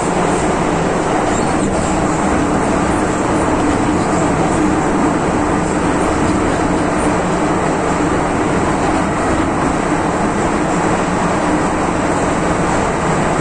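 MTR Tsuen Wan line M-Train (Metro-Cammell EMU) running at steady speed through a tunnel, heard from inside the car: a steady, loud rumble of wheels and tunnel noise with a faint steady hum underneath.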